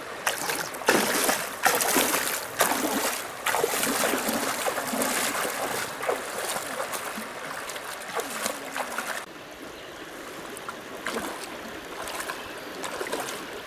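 Water splashing and sloshing in quick irregular splashes for about nine seconds, then quieter, sparser splashes and trickling.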